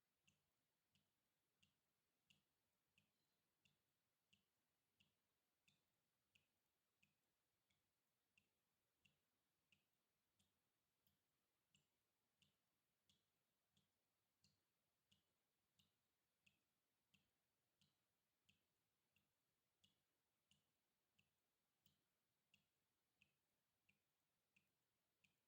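Water dripping faintly in a steady rhythm, about three drops every two seconds, each drop a short plink.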